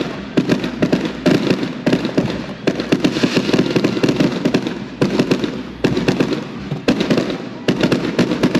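Fireworks display: a string of loud bangs about a second apart, each followed by a spell of dense crackling.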